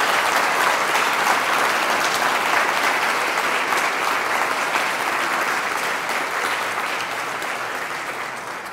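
Large audience applauding: dense, sustained clapping that slowly dies away over the last few seconds.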